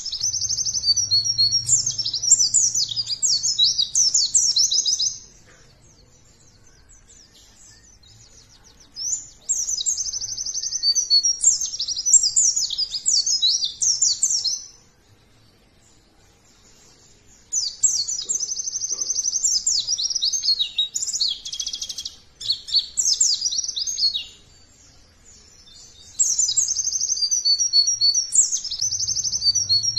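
White-eye (pleci) singing: rapid, high-pitched chattering song in four bouts of about four to six seconds each, separated by short pauses.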